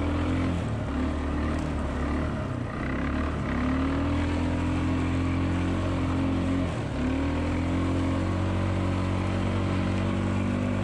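ATV engine running hard, heard up close from on board. Its pitch repeatedly climbs and levels off, dipping briefly three times: about a second in, about three seconds in and about seven seconds in.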